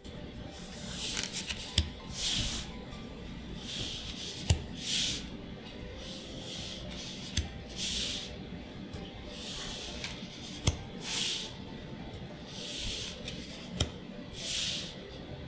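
Magic: The Gathering trading cards being slid one by one through a freshly opened booster pack: a soft swish of card against card about once a second, with a few sharp clicks.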